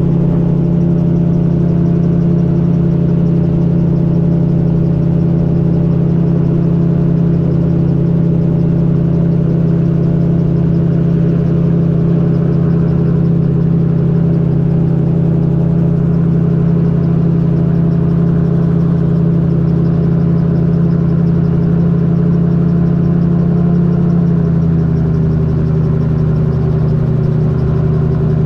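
Magni M16 gyrocopter's engine and pusher propeller droning steadily in cruise flight, heard from the open cockpit. About 24 seconds in, the engine note drops slightly lower and a little quieter.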